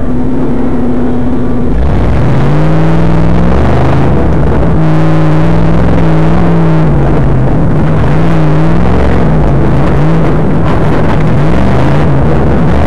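Tough truck's engine, heard from inside the cab, very loud. It holds a steady note for about the first two seconds, then is revved hard, its pitch swinging up and down repeatedly as the throttle opens and closes.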